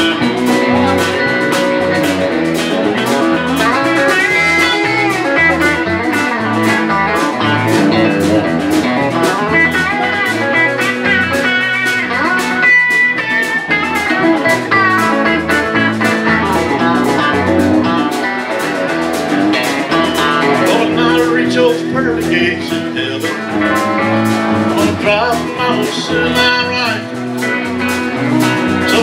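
Live band playing: two electric guitars, electric bass and a drum kit, with a steady drum beat.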